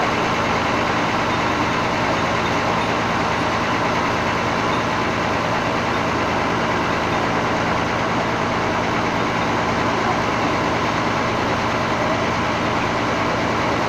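Bus engine idling steadily, with no change in speed or level.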